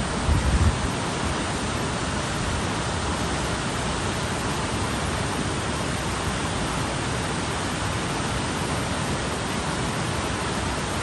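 Water rushing over a river weir and churning in the white water below: a steady, even rushing noise. A brief low rumble sounds just after the start.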